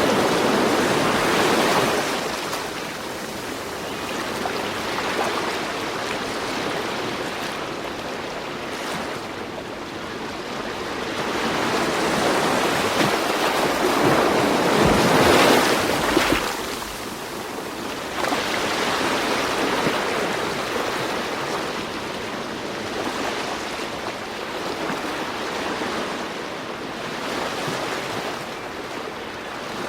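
Ocean waves breaking and washing ashore, swelling and falling back over several seconds, the biggest surge about halfway through.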